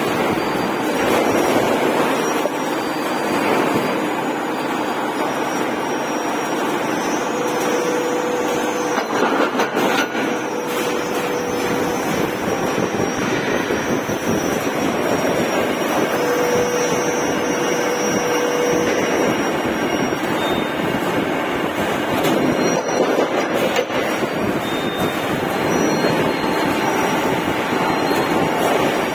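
Steady mechanical running noise from a steel-coil servo feed line in a workshop. A faint whine comes in twice, a few seconds at a time.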